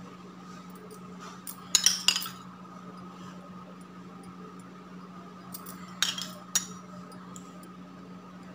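Steel spoon clinking against a dish while saffron milk is ladled out: a quick cluster of clinks about two seconds in and two more about six seconds in, over a steady low hum.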